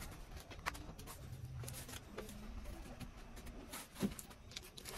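Faint scattered clicks and knocks over a low hum, with one louder knock about four seconds in.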